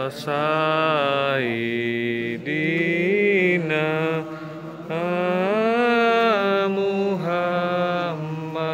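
Voices chanting in long, drawn-out phrases, held notes sliding slowly up and down in pitch, with brief breaths between phrases.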